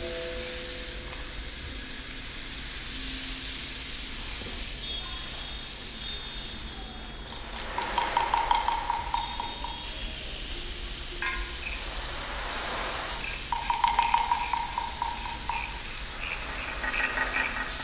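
Small hand percussion and found objects played softly by an ensemble: a steady rustling hiss with scattered light clinks and short chime-like tones. There are two louder bursts of rapid rasping clicks, about eight and fourteen seconds in.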